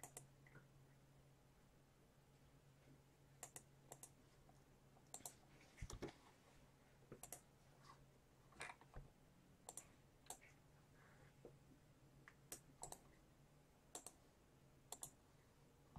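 Faint clicking of a computer mouse and keyboard, scattered short clicks, many in quick pairs, over a faint low hum.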